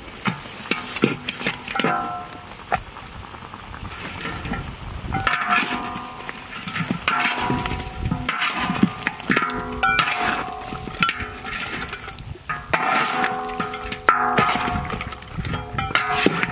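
A metal spatula scraping and knocking against a large metal wok while stirring chunks of goat meat and bone. The wok rings briefly after many of the knocks, in irregular clatters throughout.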